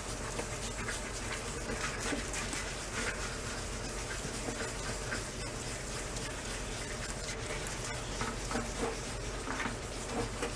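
Hand wet sanding: a piece of sandpaper rubbed over the wet, soapy painted steel of a motorcycle fuel tank, giving a soft, irregular scratchy rubbing throughout. The sanding is cutting through black overpaint toward the original red paint underneath.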